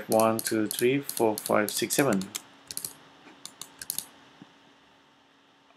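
Light, uneven clicks of computer keys, a handful of them spread over about two seconds after the counting stops.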